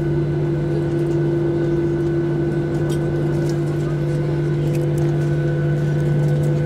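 Boeing 737-800's CFM56-7B jet engines heard from inside the passenger cabin while taxiing: a steady drone with several steady hums over a low rumble.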